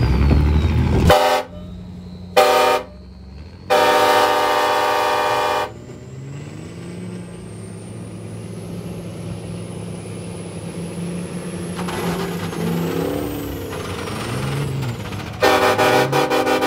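A vehicle horn honks three times, two short honks and then a long one: the signal to start the pull. Diesel trucks then run under full throttle in the tug of war, with a high whine that rises and then falls. A long horn blast comes again near the end and is as loud as the first honks.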